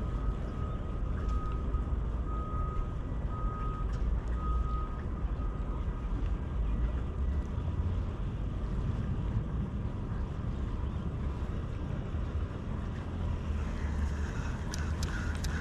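A vehicle's reversing alarm beeping on one steady pitch about once a second for the first five seconds, over a steady low rumble. A few sharp clicks come near the end.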